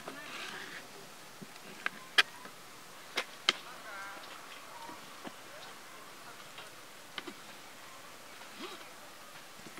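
Kitchen knives cutting raw pork and pumpkin on a plastic chopping board: about half a dozen sharp, irregularly spaced knocks of the blade striking the board.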